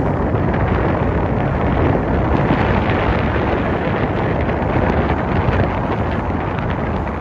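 Steady rush of wind buffeting the microphone aboard a speedboat under way, with the boat's motor and the water against its hull mixed in underneath.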